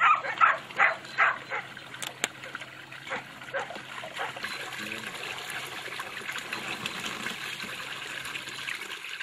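A dog barking in a quick series of barks for about the first two seconds, then a steady hiss for the rest.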